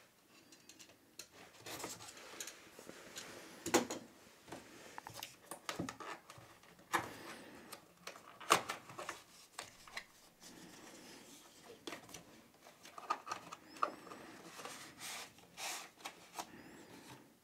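Hands opening a small cardboard retail box: the card flaps and sleeve rub and scrape, with scattered sharp clicks and taps, and the plastic inner tray holding the drive slides out of the sleeve near the end.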